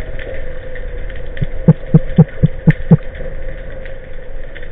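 Underwater sound: a quick run of about six low thumps, about four a second, starting about a second and a half in, over a steady hum and faint crackle.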